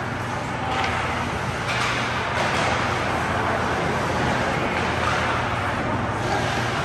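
Steady ice-hockey game noise in an arena: play and crowd blended into one continuous din, with a few brief louder scrapes about one and two seconds in.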